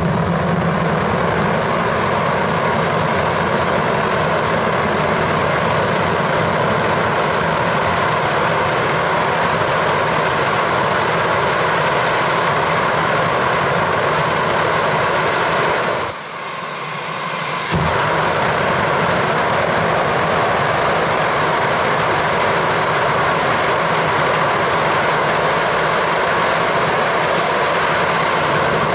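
Turbocharger-based jet engine with a lit afterburner running steadily, a loud, even rushing sound; the afterburner has a freshly built flame holder and a tacked-on nose cone and is working well. The level dips for a second or two about sixteen seconds in, then comes back abruptly.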